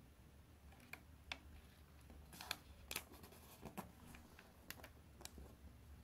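A square sheet of origami paper being folded and creased by hand: scattered faint, crisp crackles and ticks, the sharpest few falling around the middle.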